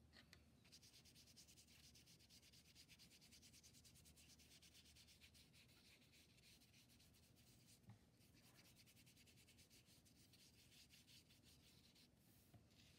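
Faint scrubbing of a paintbrush on paper in quick back-and-forth strokes, starting about a second in, with a brief pause and a light tap about two-thirds of the way through.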